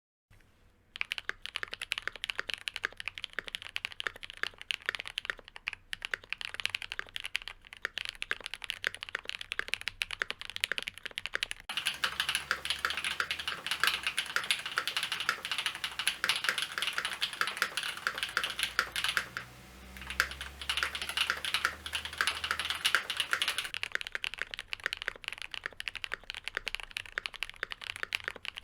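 Typing on an Ikki68 Aurora gasket-mount mechanical keyboard with lubed linear switches (Cherry MX Black housings with Kailh black stems) in an aluminium plate, under GMK ABS keycaps. A steady stream of keystrokes that becomes louder and denser about a third of the way in, breaks off briefly, then gets lighter again near the end.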